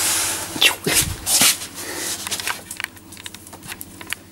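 Four-week-old Jack Russell terrier puppies moving about: a short puppy cry and rustling about a second in, followed by light, irregular clicking of small claws.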